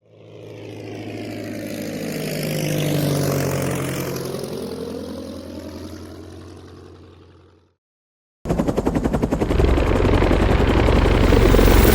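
Propeller aircraft flying past: its engine drone swells to a peak about three seconds in, dips slightly in pitch, then fades away and stops. After a short silence, a louder, rapidly pulsing engine sound starts.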